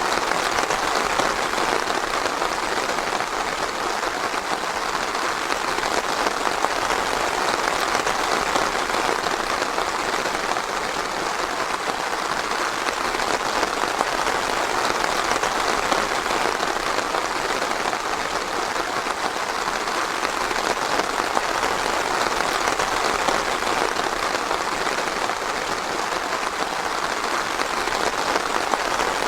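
Steady light rain, a dense even patter with no thunder and no breaks.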